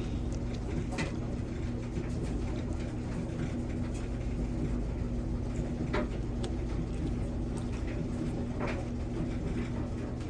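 A steady low mechanical hum, with a few light clicks about one, six and nine seconds in.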